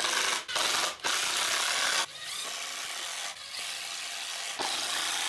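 Cordless power driver driving pocket-hole screws into 2x4 pine boards to join a frame. It runs in several bursts of about a second each, stopping and starting between screws, with a rasping, ratcheting sound.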